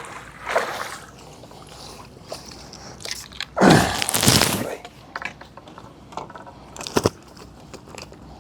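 A freshly netted fish thrashing in a landing net, with one loud splash of water a few seconds in. Scattered crackles and clicks come and go around it.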